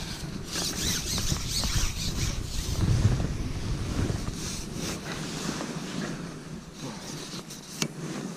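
Wind buffeting the microphone, with rustling handling noise; the low rumble drops away about halfway, and there is one sharp click near the end.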